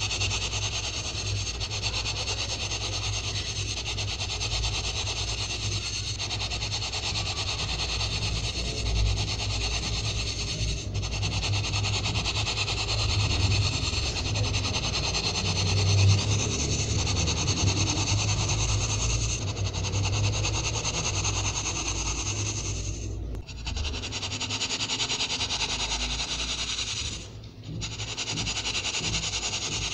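Fingers rubbing and crushing dry baking soda powder against the mesh of a plastic sieve and the tabletop: continuous gritty rubbing, broken by two short pauses near the end.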